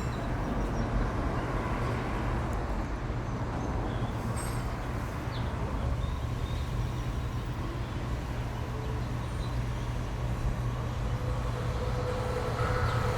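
Steady low mechanical rumble with a constant deep hum underneath; a thin steady tone joins near the end.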